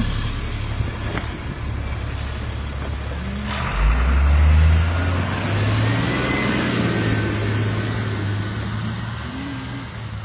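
Thomas FS-65 school bus's diesel engine idling, then a sudden hiss about three and a half seconds in as the engine revs up and the bus pulls away. The engine note stays steady, then fades near the end.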